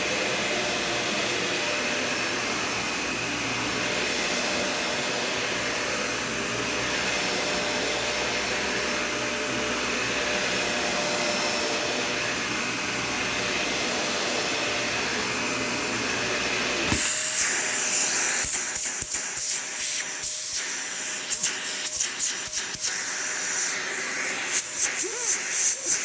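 Dyson Ball Total Clean upright vacuum running steadily with a motor hum and rushing airflow. About two-thirds of the way through the sound changes abruptly: the low hum drops away and a brighter hiss with irregular crackles and surges takes over.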